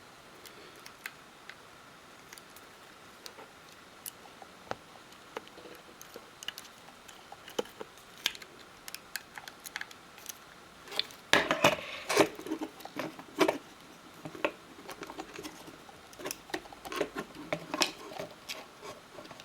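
Small, sharp clicks, taps and scrapes of tools and fingers handling the internals of an opened iPhone 5 while a replacement headphone jack part is fitted. A busier stretch of handling noise comes about eleven to thirteen seconds in.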